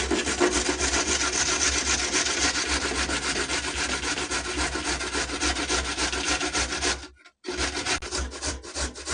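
A raw carrot being grated on the fine side of a stainless-steel box grater, a rapid run of rasping strokes. The strokes stop briefly about seven seconds in, then resume more spaced out.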